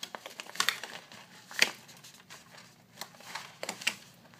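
Irregular small snaps and rustles of an inflated glove and a clear Rainbow Loom rubber band being handled as the band is wound around the glove's cuff, the sharpest snap about a second and a half in.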